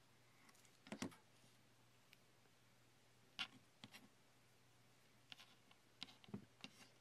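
Faint clicks and scrapes of a craft knife cutting small pieces from a thin slab of stone-powder clay, and the small pieces being picked up and set down, in several short clusters over a low steady hum.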